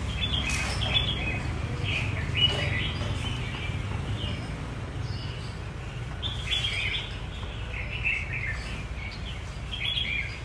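Caged red-whiskered bulbuls singing short, chirpy phrases: one spell near the start and another from about six seconds in, over a steady low background hum.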